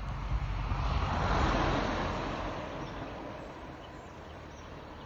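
A vehicle passing by: a rushing noise that swells to its loudest about a second and a half in, then slowly fades away.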